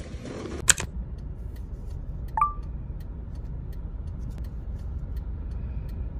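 Steady low rumble of a car cabin, with faint ticks of a kraft-paper envelope being handled. A sharp click comes just under a second in and a short beep a little over two seconds in.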